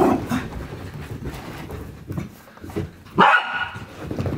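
Miniature dachshund puppies playing, one of them giving a single sharp bark about three seconds in.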